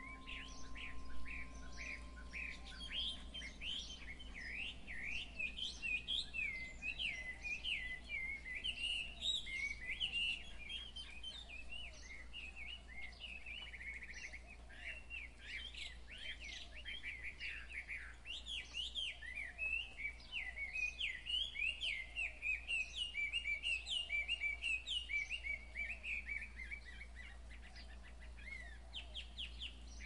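A chorus of small songbirds chirping and twittering without a break, many short quick calls overlapping. A lingering chime tone fades out in the first few seconds.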